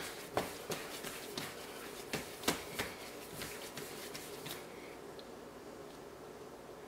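Hands handling and patting a large ball of pizza dough, with a few light taps and rustles in the first three seconds, then faint room tone.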